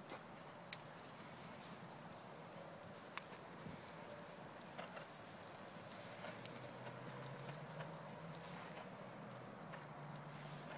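Hooves of a horse and foal trotting on soft dirt: scattered, irregular muffled hoofbeats over a steady hiss. A low steady hum comes in about six seconds in.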